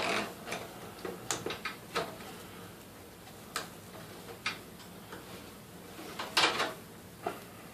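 Scattered clicks and light knocks of cable connectors being handled and pushed back into place inside a desktop computer case, with a short, louder scrape about six and a half seconds in.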